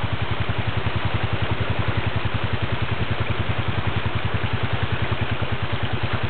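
ATV engine idling steadily, an even, rapid low pulsing with no revving.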